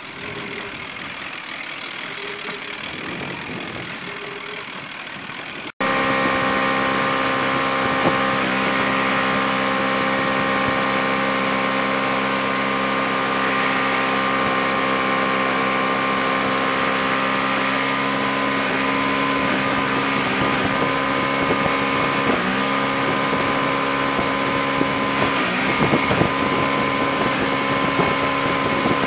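Motorboat engine idling low for about six seconds, which the driver hears as running a little rough. After a sudden cut it runs steadily at towing speed, one constant hum under wind and water hiss.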